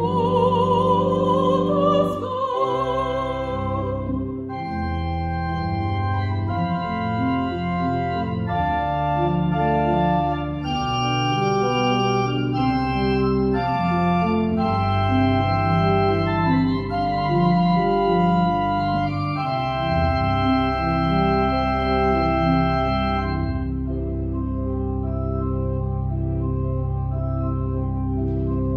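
A woman's sung note with vibrato ends about two seconds in. The church pipe organ then plays on alone, with chords over a bass line, and ends on a long held chord.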